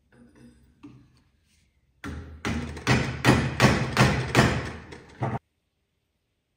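Rhythmic tool strokes on a silver-and-copper mokume gane ring held on a wooden mandrel in a vise: about eight quick strokes, roughly three a second, after a little faint handling. The strokes stop abruptly about five seconds in.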